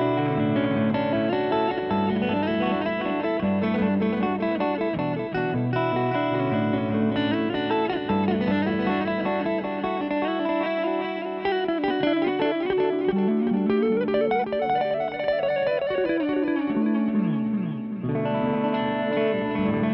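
Electric guitar riff on a headless Strandberg Boden, played through a BOSS PS-3 Pitch Shifter/Delay in one of its digital delay modes, so each phrase repeats as echoes. The notes run continuously, with some sliding notes in the second half.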